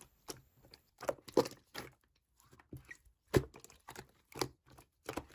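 A scattered series of short clicks and taps at an irregular pace, with quiet gaps between them; two of them, about a second and a half and three and a half seconds in, are the loudest.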